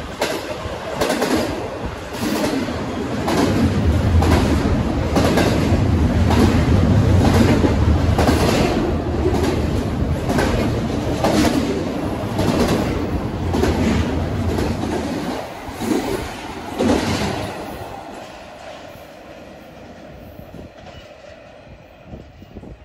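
Intermodal freight train of trailers on flatcars and double-stack container cars passing close by, a heavy rumble with a regular clickety-clack of wheels over rail joints about once a second. The sound fades away over the last few seconds as the train moves off.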